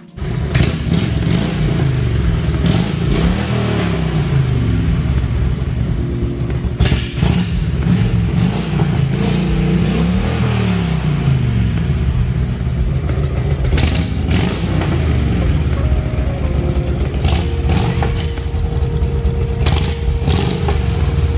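Harley-Davidson touring motorcycle's V-twin engine running, its revs rising and falling several times, with a few sharp knocks.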